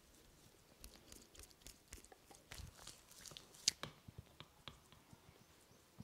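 Hands massaging a man's face and head close to the microphone: fingers rubbing and pressing on skin and hair, making faint scattered clicks and crackles, with one sharper click about two-thirds of the way through.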